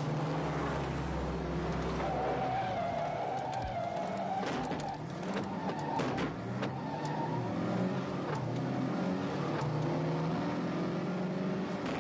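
Cars driven hard on a dirt track: engines revving and changing pitch, with tyres skidding on loose ground. Several sharp knocks come between about four and eight seconds in.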